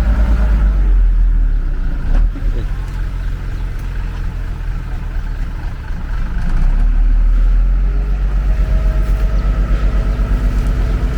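Heavy diesel engine of earthmoving machinery running under load, a deep steady rumble that eases off from about two seconds in and builds again around six seconds in. A single sharp knock is heard about two seconds in.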